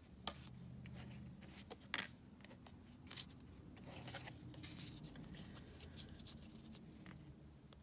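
Trading cards being handled and sorted by hand: soft rustles and scattered small clicks and taps, a sharper tap about two seconds in, over a faint steady hum.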